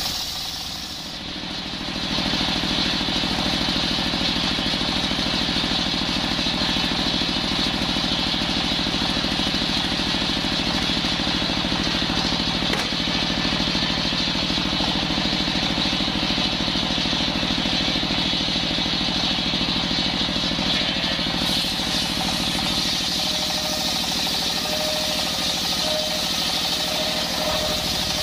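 A circular sawmill blade ripping a coconut log lengthwise, driven by a single-cylinder diesel engine that runs steadily throughout. Near the end the low engine rumble eases and a faint high whine comes in.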